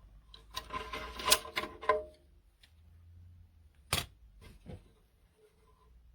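A burst of rustling and clicking for about two seconds, then a single sharp click about four seconds in and a softer click just after.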